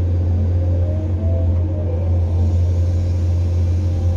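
Caterpillar 345 excavator's diesel engine running with a steady low drone, heard from inside the cab while the machine swings a loaded bucket. A faint whine rises and falls about a second in.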